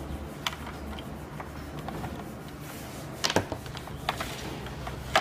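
Scattered clicks and knocks from a Makita plunge-cut track saw, not running, as it is pressed and moved by hand on its aluminium guide rail, with a small cluster of clicks a little past halfway and a sharper knock at the end. A steady low hum runs underneath.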